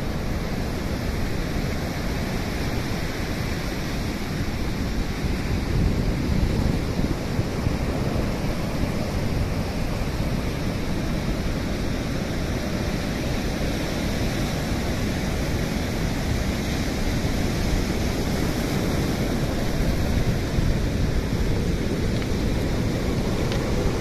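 Ocean surf washing in over a sand-and-pebble shore: a steady rush of water, with no separate crashes.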